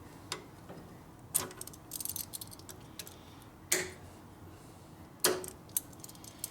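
Metal hand tools clinking and clicking against metal parts: sharp single clinks with a short ring, roughly a second or more apart, with a quick run of small clicks about two seconds in.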